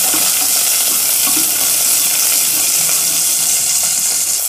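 Small onions sizzling in sesame oil in a steel pressure cooker pan, stirred with a wooden spoon that scrapes the pan. A steady frying hiss.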